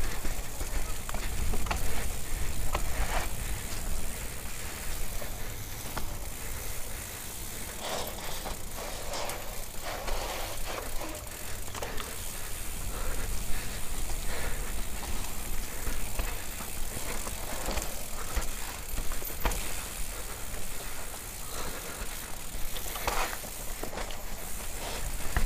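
Mountain bike descending a dirt singletrack: tyres rolling over dirt and dry leaves, with frequent knocks and rattles of the bike over bumps, over a steady low rumble of wind on the microphone.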